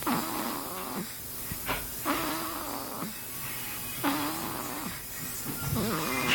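A baby snoring, a rasping snore on each breath, four snores about two seconds apart.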